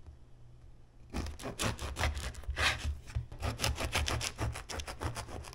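A knife sawing through a crusty baguette on a wooden cutting board, in rapid back-and-forth strokes that start about a second in.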